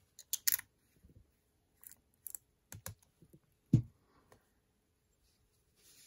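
Small plastic dropper bottle of gold-testing acid being capped and handled: a quick run of light clicks and taps, then a louder knock about four seconds in as it is set down on the table.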